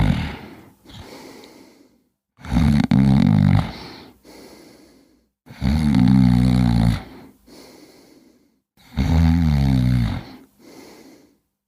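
Cat snoring: four loud, low snores about three seconds apart, each followed by a softer breath.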